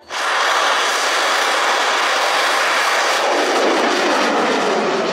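A Thai bun bang fai festival rocket in flight, its motor burning with a loud, steady rushing roar. In the last couple of seconds the roar slides lower in pitch.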